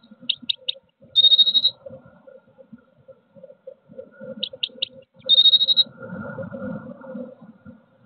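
Blue tit song, twice: three short high notes followed by a brief trill, the phrase repeated about four seconds later. A faint steady hum runs underneath, and a soft low rustle follows the second phrase.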